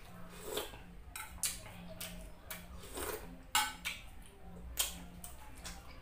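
Close-up eating sounds: chewing and mouth noises, broken by several sharp clinks of a metal spoon against the dishes. The loudest clink comes a little past halfway.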